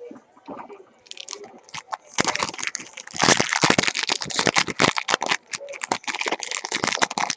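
Foil trading-card pack wrappers crinkling and tearing as packs are opened: a few light clicks, then dense crackling from about two seconds in.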